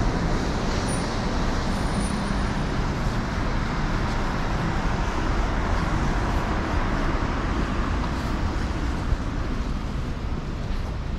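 Steady road traffic noise from cars and a bus passing on a wide city street, with one brief click about nine seconds in.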